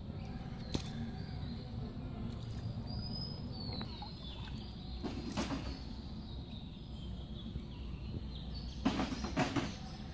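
Shallow pond water sloshing and splashing as hands work through a bamboo-framed feluin net, loudest about 9 seconds in, over a steady outdoor background. A bird gives a short falling call about 3 seconds in.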